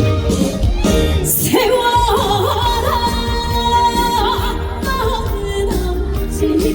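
Live song performance: a female singer over loud backing music. Her voice comes in with a rising glide about a second and a half in, then holds a long note with vibrato.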